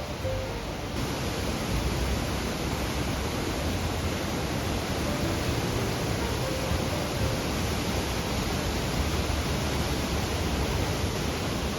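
Dynjandi waterfall's steady rushing roar of falling water, a little louder about a second in.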